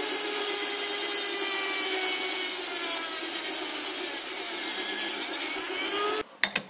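A Dremel rotary tool running at high speed, its thin abrasive disc grinding the face of a metal ring turning in a lathe chuck: a steady high whine over a grinding hiss. It stops abruptly about six seconds in.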